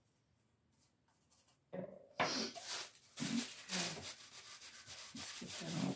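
Irregular rubbing and brushing strokes over gold leaf on a lamp's surface as the leaf is pressed and burnished down, starting about two seconds in.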